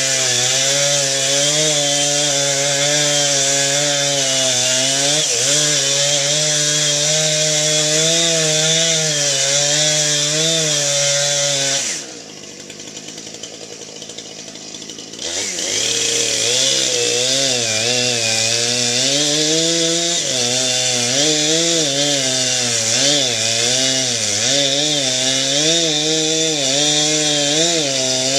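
Two-stroke Husqvarna chainsaw running at high revs, cutting cherry wood, its pitch wavering under load. About twelve seconds in the engine drops off sharply for around three seconds, then revs back up and carries on cutting.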